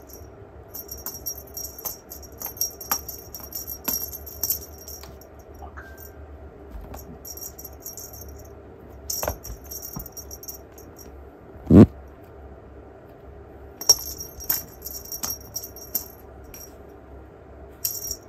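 Cats playing with a wand toy: a small bell jingling in short shakes, many times, with light taps on the floor. One heavy thump about twelve seconds in is the loudest sound.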